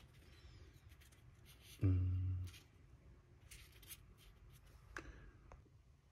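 Faint handling noises of hands and objects on a hobby desk: light rubbing and a few small clicks. A short hummed 'mm' from a man's voice comes a little under two seconds in.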